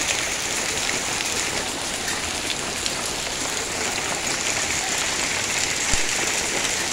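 Hailstorm: a steady hiss of falling hail and rain, with scattered ticks of hailstones striking surfaces and one sharper knock about six seconds in.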